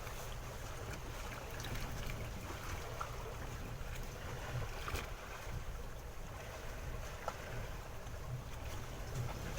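Steady low rumble with wind and water wash aboard a small fishing boat at sea, with a few faint knocks.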